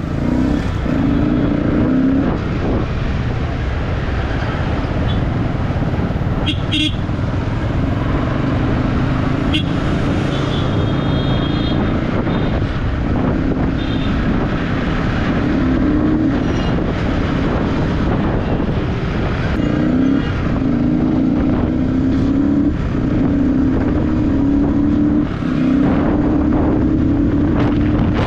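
Yamaha R15's single-cylinder engine pulling away and accelerating through the gears, its pitch climbing in stretches and dropping at each shift, over steady traffic noise. Vehicle horns toot briefly a few times in the first half.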